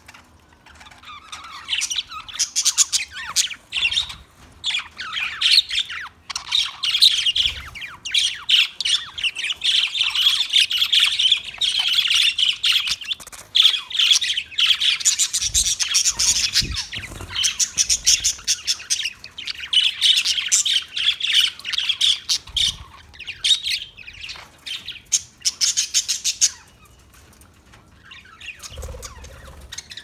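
A flock of budgerigars chattering, with a dense stream of quick, high chirps and squawks. It falls quiet near the end.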